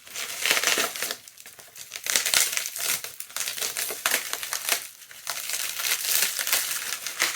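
Packing wrap crinkling and crackling as it is pulled off a boxed Funko Pop figure by hand, in three spells with brief pauses between them.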